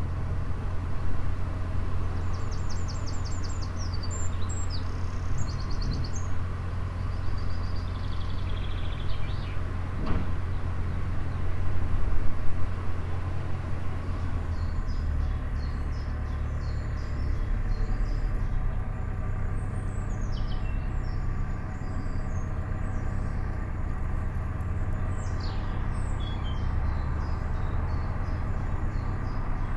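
A narrowboat's diesel engine running steadily under way, a low drone. Birds sing over it, with quick trills early on and frequent chirps through the second half.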